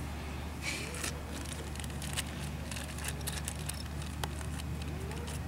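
A crinkly wrapper rustling in someone's hands, making a scatter of light crackles and clicks over a steady low hum.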